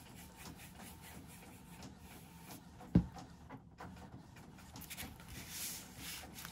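Faint paper-crafting handling sounds: the fine metal tip of a liquid glue bottle scratching lightly along a paper strip, a single sharp tap about three seconds in as the bottle is set down, then paper rustling and sliding as a card panel is moved into place.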